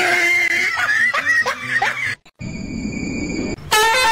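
A person laughing and giggling for about two seconds, cut off abruptly. Then comes about a second of hiss with a steady high whine, and a loud held high-pitched cry near the end.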